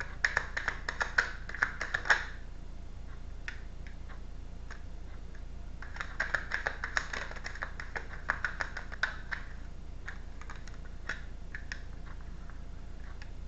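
A deck of tarot cards being shuffled by hand: two spells of rapid card-on-card clicking, one lasting about two seconds at the start and another from about six to nine seconds in, with a few single taps between.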